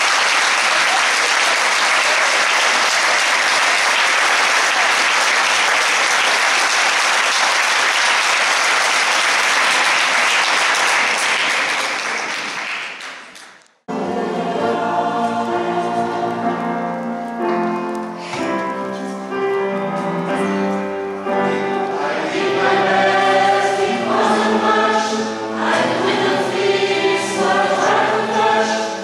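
Audience applauding steadily, fading out over about two seconds near the middle. After a sudden cut, a mixed choir of men and women sings.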